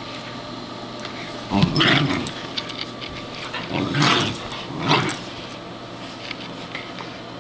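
Dog making short vocal outbursts while play-wrestling with a cat: three of them, about two, four and five seconds in.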